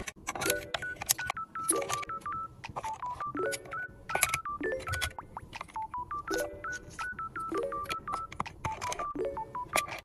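Background music of short electronic beeping notes, like phone keypad tones, in a phrase that repeats about every second, with sharp clicks among them.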